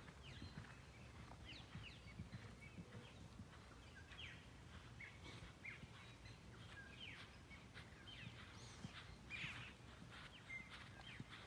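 Faint birdsong: many short chirps and quick gliding whistles from birds, scattered irregularly over a low, steady background rumble.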